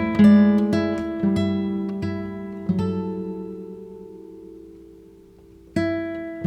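Background music on acoustic guitar: plucked notes, then a chord left ringing and slowly fading before new notes are struck near the end.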